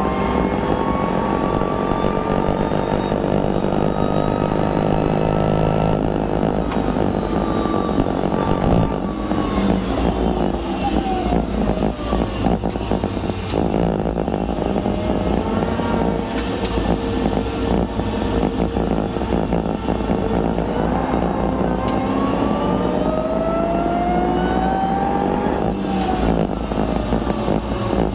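BMW E92 M3's 4.0-litre V8 heard from inside the cabin under hard track driving: the engine's pitch rises in long sweeps as it pulls through the gears and drops back several times on braking and downshifts.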